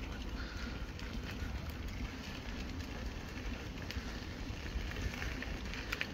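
Steady low rumble of a narrowboat under way, its engine running at low revs, with a few faint clicks.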